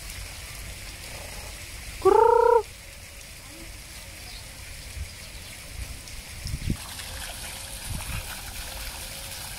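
A single loud bird call about two seconds in, one clear pitched call lasting about half a second, over a steady low background.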